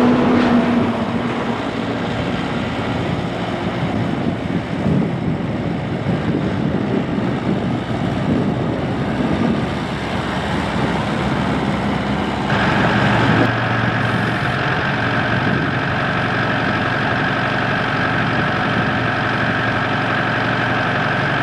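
2006 Montana 4940C tractor's four-cylinder diesel engine running as the tractor drives. About twelve seconds in it changes suddenly to a steady idle heard close up.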